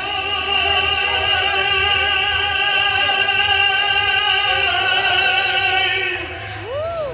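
Male mariachi singer holding one long, full-voiced high note for about six seconds over the band, operatic in style. The note then breaks off, and a short swooping rise and fall leads back into the song.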